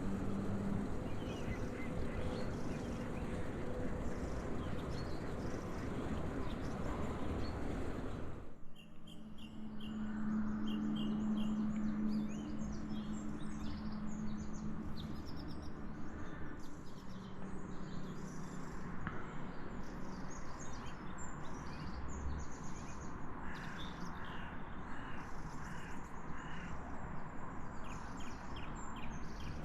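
Outdoor ambience with birds chirping and calling, short high calls repeated many times. A steady noise fills roughly the first third, then cuts off abruptly, after which the bird calls stand out clearly over a faint low hum.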